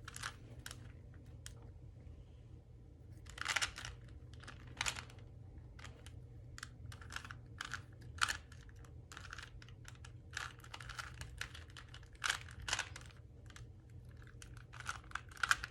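3x3 Rubik's Cube layers being turned by hand: irregular plastic clicks and clacks, some coming in quick runs.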